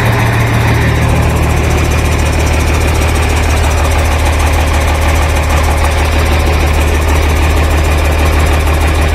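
Mercedes-Benz OM 366 inline-six diesel in a Scania truck, running steadily at idle with an even low hum.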